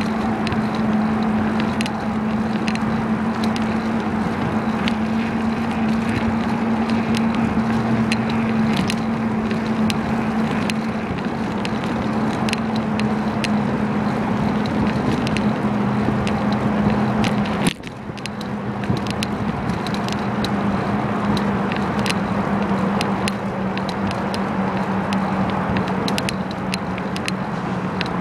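Riding noise from a moving bicycle: a steady rush of wind and tyre noise with a low hum and many small rattling clicks. The noise drops suddenly about two-thirds of the way through, then builds back up.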